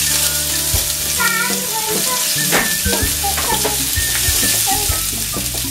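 Chopped onion sizzling steadily in hot mustard oil in a non-stick frying pan, just tipped in, while a silicone spatula stirs it with short scrapes and knocks against the pan.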